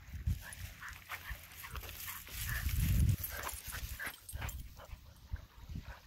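Weimaraner puppy giving a few brief, high whimpers while rustling through dry dune grass. Wind rumbles on the microphone, loudest about three seconds in.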